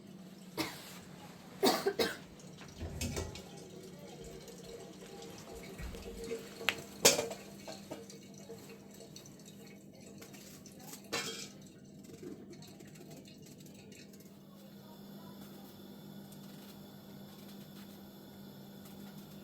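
Several sharp knocks and clinks of hard objects being handled, scattered through the first twelve seconds, over a steady low hum.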